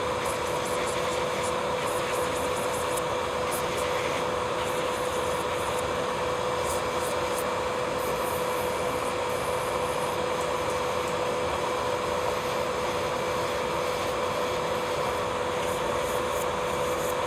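Electric nail file (e-file) running at a steady speed with a constant high hum, its bit working the cuticle area and nail surface during nail preparation. Faint scratchy ticks come through over the hum.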